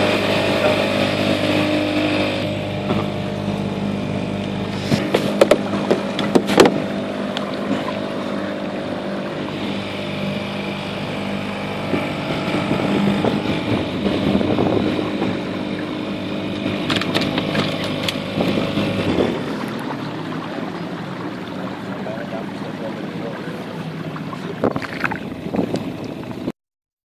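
Small motorboat's engine running steadily at low cruising speed, a pitched hum that eases off after about five seconds. A few sharp knocks and clatters come in bursts about five seconds in, around seventeen seconds and near the end.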